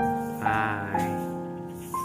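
Background music: a slow melody of held notes that fade away, with a new note beginning about every half second.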